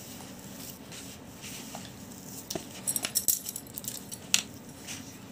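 A hand working moistened rice flour in a bowl, a soft crumbly rubbing with scattered sharp clicks against the bowl, most of them clustered about three seconds in and one more a little past four seconds.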